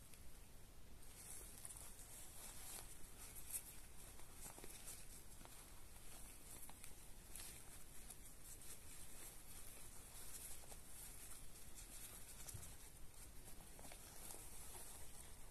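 Faint rustling and scuffing of a zippered fabric pouch handled by gloved hands, with scattered small soft ticks.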